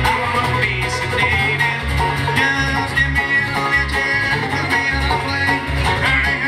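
Live acoustic band music: strummed acoustic guitars and a picked banjo playing together in a steady rhythm.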